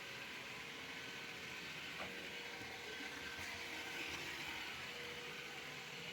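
iRobot Roomba 692 robot vacuum running, a steady faint whir of its suction motor and brushes, with a thin steady hum joining about two seconds in.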